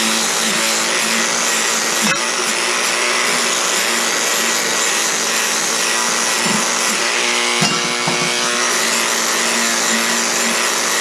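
Electric grinder running steadily at full speed, a constant motor hum with a hiss from its wheel working the metal, and a short knock about two seconds in.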